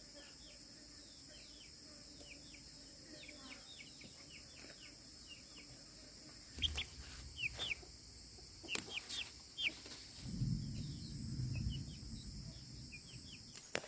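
Young chicks peeping: a steady run of short, high, falling chirps. A few sharp knocks come about halfway through, and a low rumble follows a little later.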